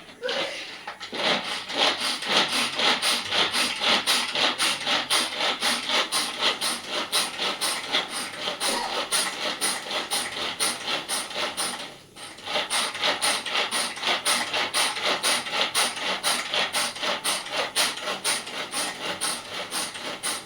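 Onion, ginger and green chilli being coarsely ground by hand on a grinding stone: the stone is rubbed back and forth in a steady rhythm of about three strokes a second, with a short break about twelve seconds in.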